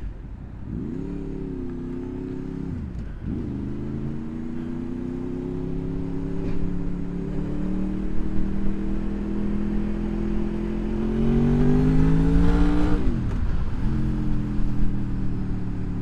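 Honda VFR's V4 engine pulling away and accelerating, its note rising steadily through the gears. It drops for an upshift about three seconds in and again about three seconds before the end.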